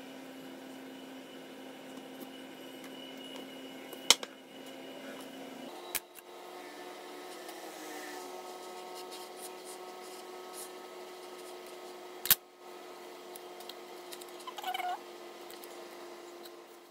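Sharp knocks of a metal cake pan being handled as it is taken off a baked sponge cake, three in all, the last the loudest, over a steady low hum.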